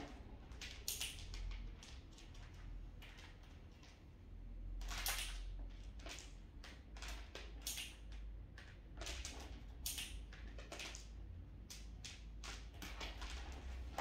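Irregular light clicks, taps and scrapes on a hard plastic pet carrier as it is handled, with a longer scrape about five seconds in.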